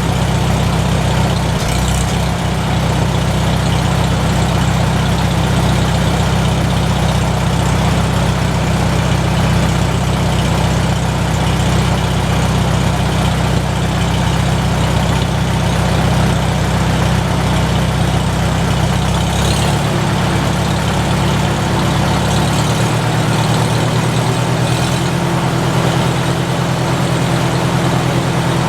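McCormick-Deering W-4 tractor's four-cylinder engine running steadily at idle after its spring crank start and oil change. Its speed shifts slightly twice, about two-thirds of the way in and again a few seconds later.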